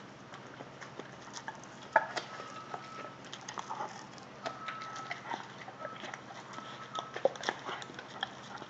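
Rottweilers chewing corn: irregular crunches and clicks, the sharpest about two seconds in.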